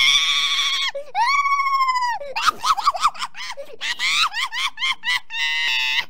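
A child's high-pitched voice screaming as a novelty 'mama' ringtone: two long wails of about a second each, then a quick run of short wavering cries and a buzzy held cry near the end.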